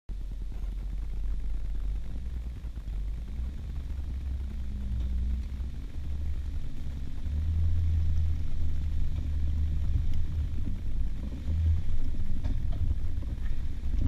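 Jeep engine running at low revs as it crawls up a steep dirt trail, its pitch stepping up and down with the throttle and getting louder in the second half.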